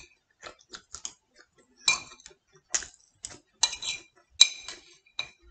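Metal spoon clinking and scraping against a ceramic plate while scooping food, a string of irregular sharp clinks with a short ringing tone.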